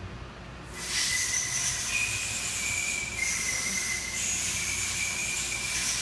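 Loud hiss of escaping air with a thin, high whistling tone. It starts about a second in and keeps going, its pitch shifting slightly a few times.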